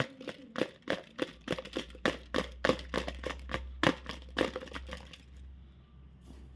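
Chocolate and its packaging being handled and broken open: a quick run of sharp crackles and crunches, about three or four a second, that stops about five seconds in. A steady low hum runs underneath.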